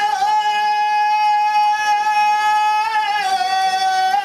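A high singing voice holds one long drawn-out note of the festival float's song, with a slight waver in pitch about three seconds in.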